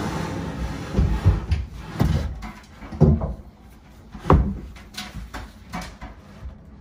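A heavy quartz countertop slab being set down and shifted into place on wooden cabinet bases: a sliding scrape at the start, then a series of dull thumps and knocks about once a second.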